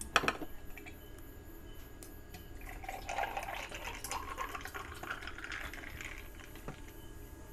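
Cola poured from a plastic bottle into a glass mug over ice cubes, the fill rising steadily in pitch as the mug fills, with a sharp knock at the very start.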